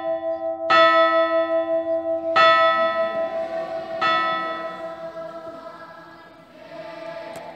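A large bell tolling, struck three times about one and a half seconds apart, each stroke ringing on with a pulsing hum, then dying away near the end.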